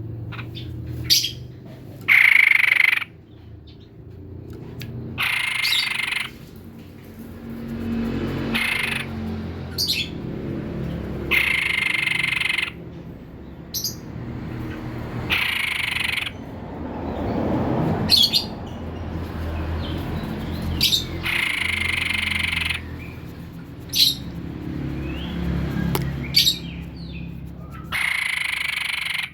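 White-breasted babbler (tepus dada putih) calling: harsh, buzzy calls about a second long repeated every few seconds, with short sharp notes in between.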